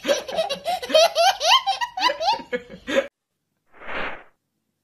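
A small child's loud belly laugh, a rapid run of high, rising laugh bursts that cuts off about three seconds in. About four seconds in comes a brief rush of noise.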